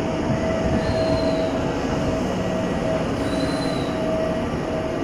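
Tyne and Wear Metro train pulling into the platform, its carriages rolling past with a steady rumble and whine, and two brief high wheel squeals, about a second in and about three and a half seconds in.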